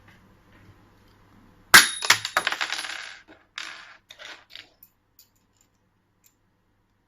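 A small metal part hits a hard surface with a sharp clink about two seconds in, then bounces and rattles with a metallic ring for about a second and a half. A few smaller clatters follow as it settles.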